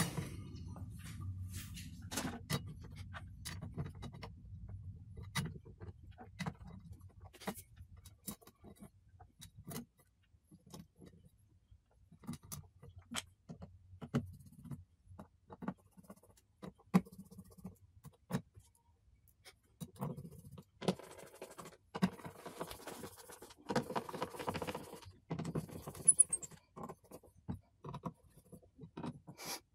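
Small screws being set into a turntable's metal motor cover plate and driven with a hand screwdriver. Scattered small metallic clicks and ticks run throughout, with longer rasping stretches as the screws are turned, busiest in the second half.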